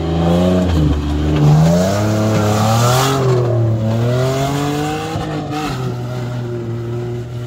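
An off-road 4x4's engine revs up and down several times as it drives through a muddy rut, with tyres churning the mud. After about five and a half seconds the engine settles to a lower, steadier note and fades slightly as the vehicle pulls away.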